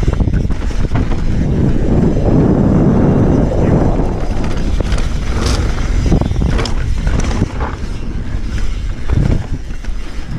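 Mountain bike descending a dry dirt trail: a steady rumble of wind on the microphone and knobby tyres on dirt, with a few sharp rattles and clatters from the bike over bumps in the middle stretch.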